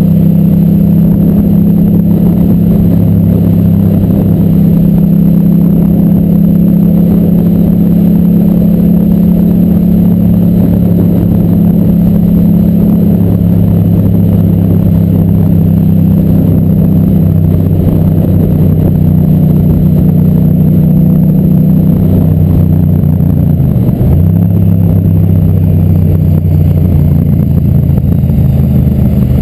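Motorcycle engine running hard at high, fairly steady revs. About 24 seconds in the pitch briefly drops and climbs straight back.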